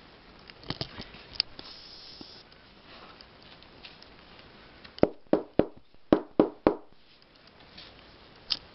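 Handling sounds of a weasel pelt being worked onto a wooden stretcher board, with a few light clicks and then a quick run of six sharp knocks just past the middle.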